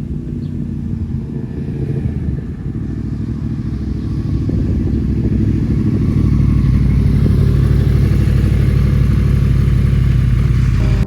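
Motorcycle engine running, getting louder from about four seconds in and then holding steady until it cuts off.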